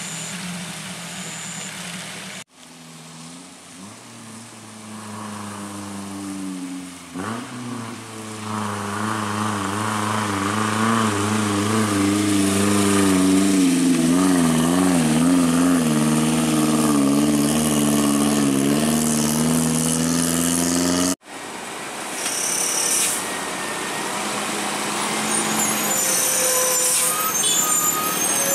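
Engines of loaded trucks labouring up a steep hill. A small pickup's engine note rises and wavers as it climbs past, growing louder. Then a container truck's diesel pulls uphill, with high squeals near the end.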